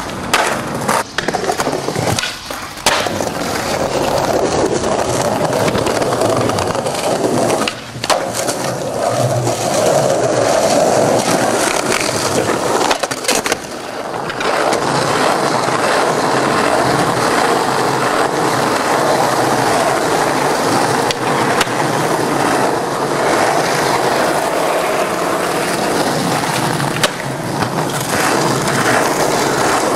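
Skateboard sounds: sharp knocks and clacks of the board hitting rail and ground in the first half, then the steady rolling rumble of skateboard wheels on asphalt through the second half.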